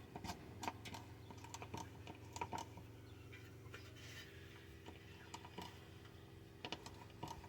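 Small hand-operated fluid pump being worked stroke after stroke, pushing transfer case fluid from a bottle through a hose into the transfer case: a run of light clicks, roughly one or two a second, over a faint steady hum.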